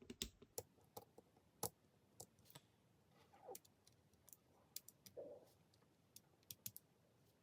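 Faint, scattered light clicks and ticks of a small precision screwdriver and tools handling a small iPod's parts, a few per second at irregular spacing.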